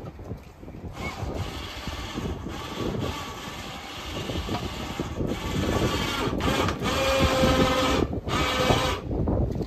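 Small truck-mounted crane's electric winch running steadily as it hoists a tyre-changing machine, growing louder toward the end.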